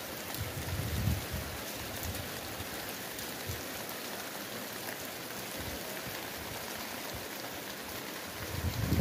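Steady, even outdoor hiss, with brief low rumbles about a second in and again near the end.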